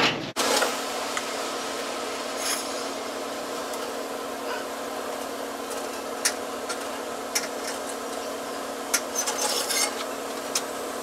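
Small scattered clicks and rubbing from hands and tools working a copper gas line and brass fittings, with a cluster of clicks about nine seconds in, over a steady hum.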